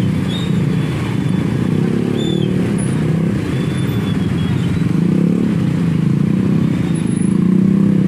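Many small motorcycle and scooter engines running together in slow, crowded traffic, idling and pulling away as they creep forward. A few faint short high chirps sound over the engine noise.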